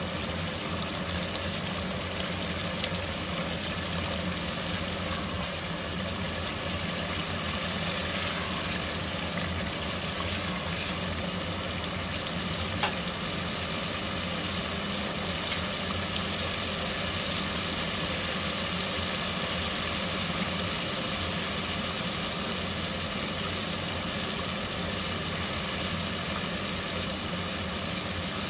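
Masala sizzling and bubbling in hot oil in a pot, stirred with a spatula at first; a steady frying hiss, with a single click about thirteen seconds in. This is the bhunai stage, frying the masala until the oil separates.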